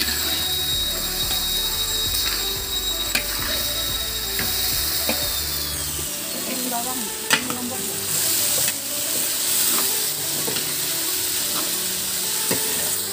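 Tempe, long beans and vegetables sizzling in a hot metal wok while a metal spatula stirs and scrapes them, with scattered clinks of the spatula against the wok. A steady high whine runs underneath and slides lower about halfway through.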